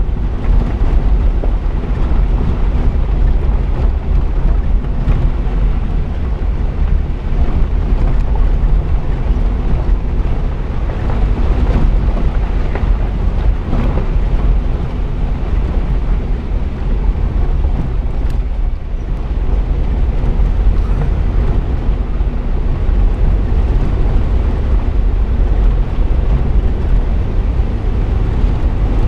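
Jeep driving on a gravel trail: a steady low rumble of the engine and tyres, with wind buffeting the hood-mounted GoPro's microphone.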